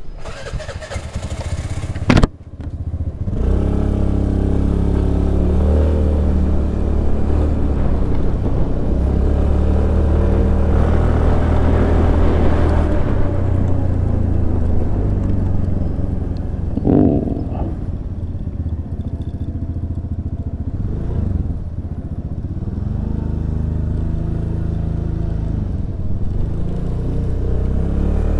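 Suzuki Burgman Street 125 scooter's single-cylinder engine on a test ride. After a sharp click about two seconds in, it pulls away with a rising pitch and runs at speed with wind and road noise. It eases off about two-thirds of the way through, then picks up speed again.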